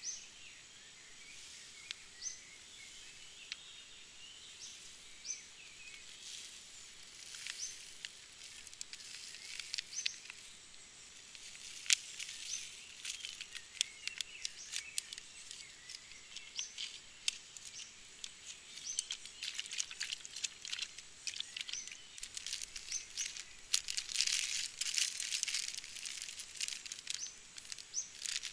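Plastic ration-pack wrappers crinkling and rustling as they are handled, in clicks and crackles that grow busier towards the end. A small bird repeats a short high chirp every second or two.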